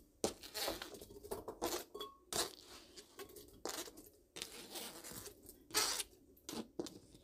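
Peeled citrus chunks being gathered by hand off a plastic cutting board and dropped into a glass blender jar: irregular soft knocks, taps and scrapes.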